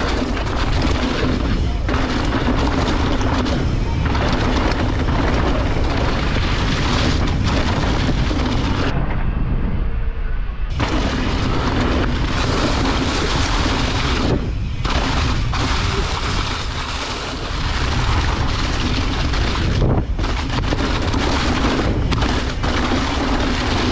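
Mountain bike riding fast down a steep trail: wind rushing over the action camera's microphone, over the rumble and clatter of the tyres and bike on leaf-covered dirt and rocks. The rush drops away for a couple of seconds about nine seconds in, then picks up again.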